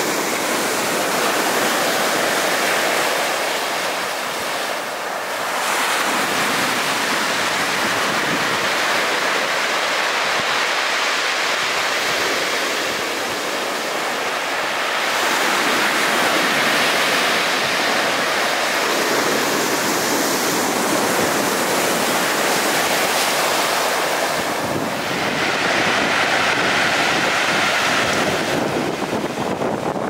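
Storm surf breaking and washing over a pebble shore and flat rocks: a dense, steady rushing that swells and eases as the waves come in every several seconds, with wind buffeting the microphone.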